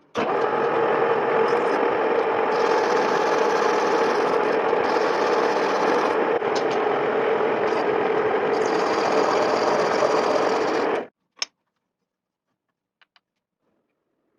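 Lathe running with a steady machine noise that starts abruptly and cuts off suddenly after about eleven seconds, followed by a single sharp click.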